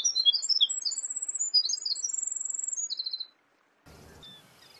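Winter wren singing: a rapid, tumbling run of high, thin trills and twittering notes that cuts off abruptly a little after three seconds in, followed by faint background noise.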